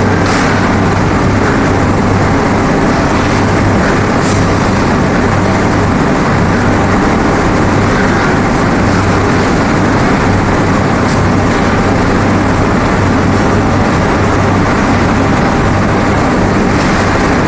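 Hot aluminium dross processing machine and its extraction running: a loud, steady mechanical drone with a low hum that comes and goes, and a few faint clicks.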